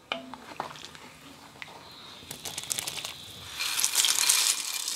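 Dry egg noodles sliding and clattering out of a bowl into a pot of broth. The rustling rattle builds and is loudest in the last second and a half, after a few light knocks early on.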